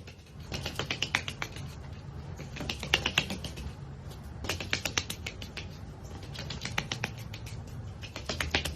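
A duck's webbed feet slapping in quick runs of taps as it dashes about with the zoomies: several bursts of rapid pattering, each about a second long, with short pauses between.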